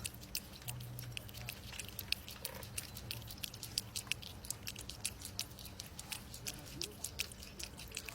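An animal chewing, with quick, irregular clicks several times a second.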